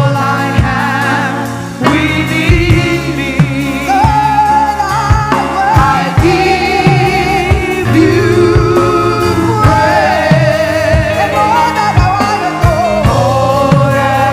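Gospel worship music: voices singing held, wavering lines over band accompaniment with a steady beat.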